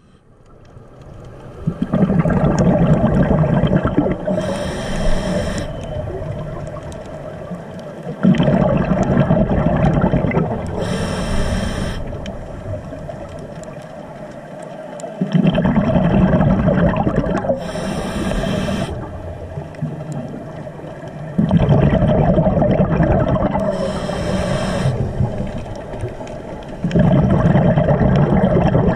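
Scuba diver breathing through a regulator, heard underwater: a short hiss of breath drawn in, then a longer, louder rush of exhaled bubbles. The cycle repeats about every six to seven seconds.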